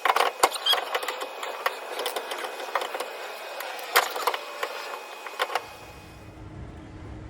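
Irregular clinks and clatter of small metal parts and tools being handled, stopping about five and a half seconds in.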